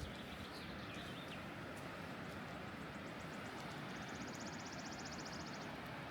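Outdoor ambience: a steady, faint hiss with a short, high, rapid bird trill about four seconds in.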